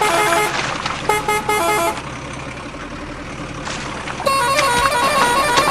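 Horn-like tones sounding in three bursts, each stepping quickly through short runs of notes, with sloshing water noise in the quieter stretch between them.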